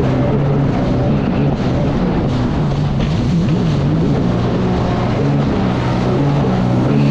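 Personal watercraft (jet ski) engine running hard, its pitch dipping and rising as the throttle is eased and opened again, with background music over it.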